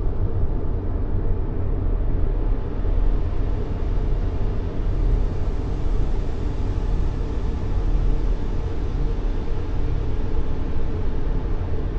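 Steady white noise for baby sleep, deep and rumbling, with most of its weight in the low end. It runs evenly without a break.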